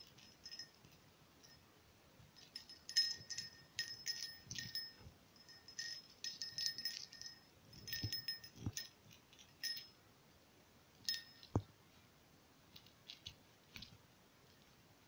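Small metal jingle bell on a wand toy jingling in irregular bursts as a pet bats and tugs at it, with a few soft thumps on the carpet. The jingling starts a couple of seconds in, comes thickest through the middle and thins to a few faint jingles near the end.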